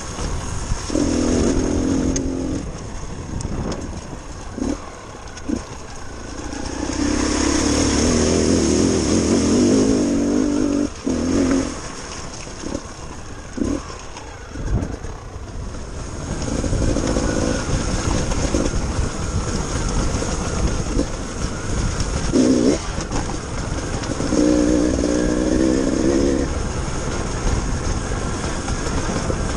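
Trials motorcycle engine revving up in several bursts of a few seconds each and dropping back between them, with scattered sharp knocks.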